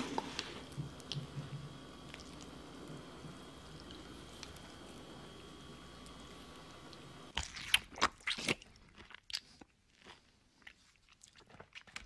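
Faint steady hum, then from about seven seconds in a burst of wet, sticky clicks and squelches from aloe vera gel, thinning to scattered clicks near the end.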